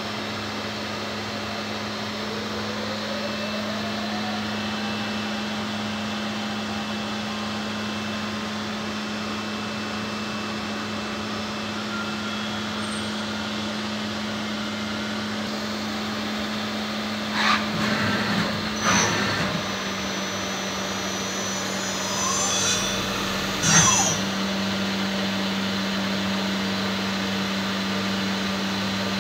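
Steady mechanical hum of a powered-up Tsugami M50SYE-III CNC lathe standing at idle. About two-thirds of the way through come a few short clunks and a brief rising whir from the machine's moving parts.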